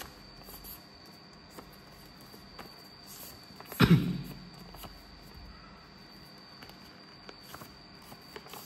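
Sheet of paper being handled and creased while a paper airplane is folded: faint rustles and small ticks, with one much louder thump and crinkle about four seconds in. A faint steady high-pitched whine sits underneath.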